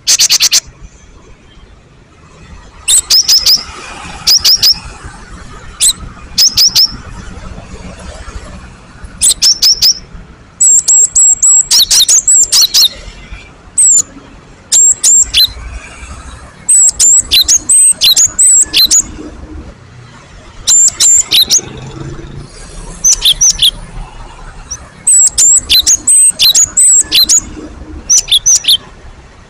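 Cinereous tit (gelatik batu) singing: loud runs of short, sharp, high chirps, repeated in bursts every second or two with brief pauses between.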